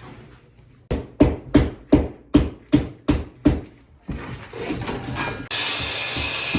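A hammer striking a nail into wood eight times in quick, even succession, about three blows a second. A steady loud noise starts suddenly near the end.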